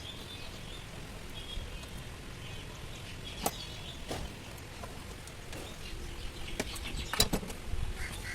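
Scattered sharp clicks and knocks of hand work on the car, the loudest about three and a half and seven seconds in, with birds chirping faintly in the background.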